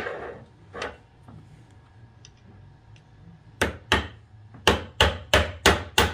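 Ball-peen hammer driving a steel roll pin into an anti-blowup tool, metal on metal: sharp strikes from about halfway in, two and then a quicker run of about five, roughly three a second.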